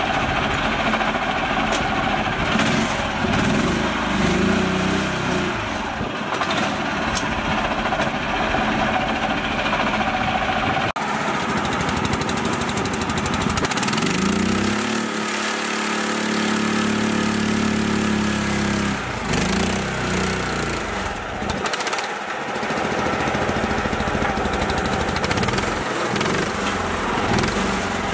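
A mini tractor's small engine running steadily under load as it pulls a loaded trailer through soft dirt. About halfway through it revs up, holds for a few seconds, then drops back.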